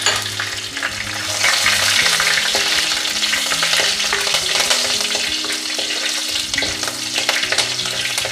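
Slit green chillies and curry leaves sizzling in hot coconut oil in a clay pot, with many small crackles, while a wooden spatula stirs them around the pot.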